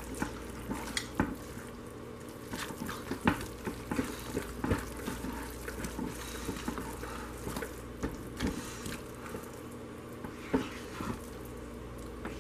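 Silicone spatula stirring and scraping thick cooked hot-process soap in a crock pot, giving irregular soft wet squelches and clicks, over a steady low hum. The stirring works hard shea and mango butter superfats into the hot soap so they melt.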